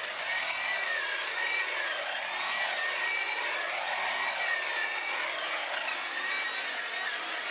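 Corded electric hedge trimmer running steadily as it cuts through an evergreen hedge, a high whine that wavers slightly in pitch.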